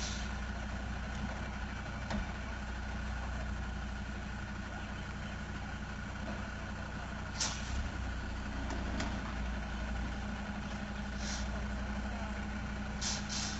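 Heavy tanker truck's diesel engine running steadily at low revs while it edges slowly through a tight turn, with a few short hisses, twice close together near the end.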